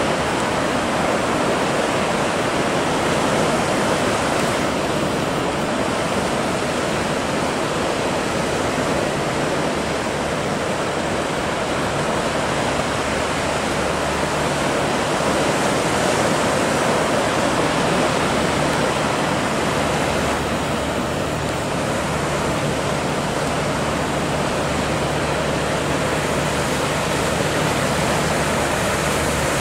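Steady rush of choppy swell and breaking waves in a harbour entrance channel. A low engine hum from a small fishing boat pushing through the waves comes in about halfway.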